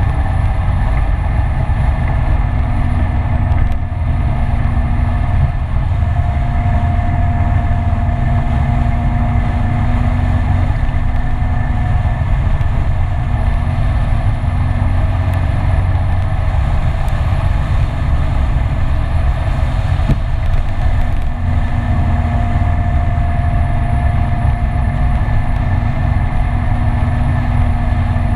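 Kymco Citycom S 300i scooter's single-cylinder engine running at a steady cruising speed while riding, with a steady hum and a heavy low rumble of road and wind noise on the scooter-mounted camera.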